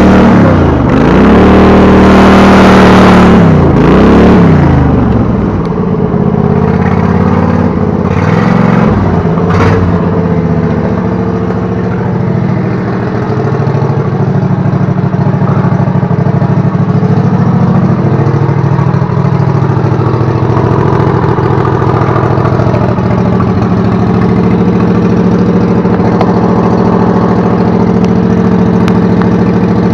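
670cc go-kart engine running under way, its revs dipping and rising twice in the first few seconds, then settling to a steady idle for the rest. A sharp click comes about ten seconds in.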